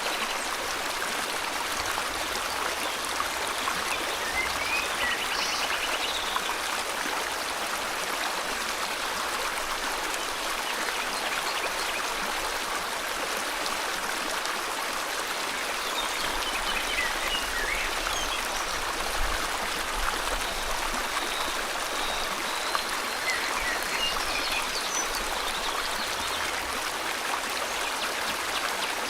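River water flowing steadily, with a few faint bird chirps and whistles over it, mostly in the second half.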